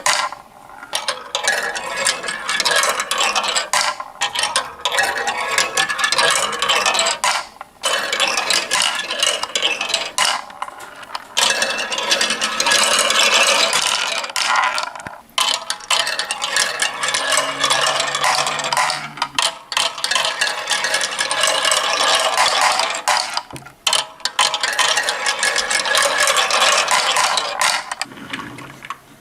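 Glass marbles rolling and clattering down a marble run track, a dense rattle of small clicks that stops briefly every few seconds and starts again.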